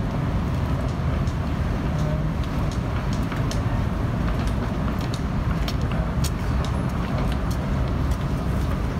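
City street traffic noise: a steady low rumble, with scattered light clicks over it.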